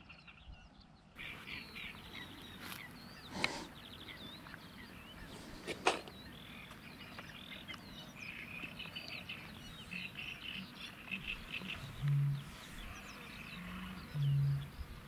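Small birds chirping and trilling steadily, with two sharp clicks a few seconds in and two short, low-pitched tones near the end.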